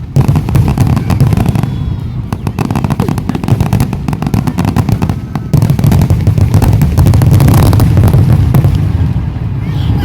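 Fireworks going off in rapid succession: dense crackling and popping over a continuous low rumble of booms.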